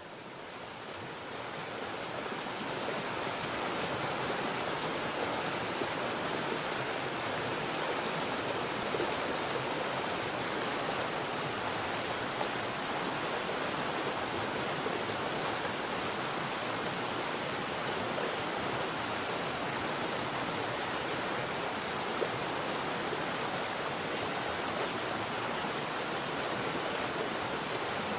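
Steady rushing of a stream and waterfall, fading in over the first few seconds.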